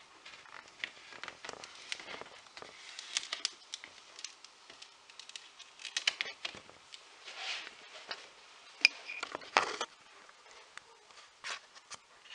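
Stiff cardstock rustling, tapping and scraping as the heart-shaped flaps of a paper explosion box are handled, with irregular small clicks and snaps; the sharpest snap and a short scrape come about nine seconds in.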